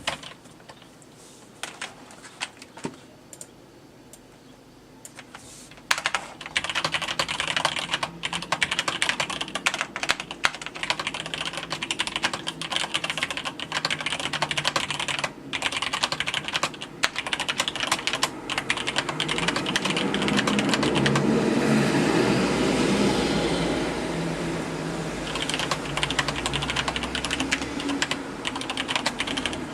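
Typing on a Cherry G80-3000 mechanical keyboard with linear Cherry MX Black switches. A few scattered key presses at first, then steady fast typing from about six seconds in.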